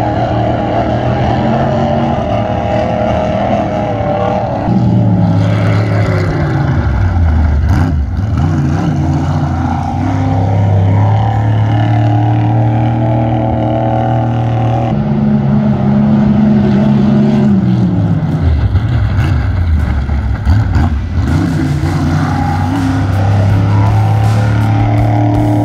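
Powerboat engine running hard on the water, holding a steady high pitch and twice dropping away and climbing back as the throttle is eased and reopened.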